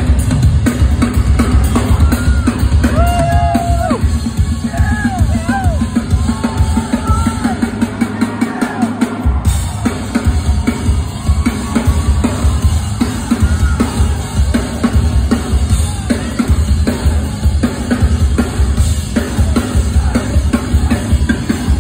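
Live drum solo on an acoustic drum kit: rapid, continuous bass drum, snare and cymbal hits. The bass drum drops out for about a second partway through, then the pounding resumes.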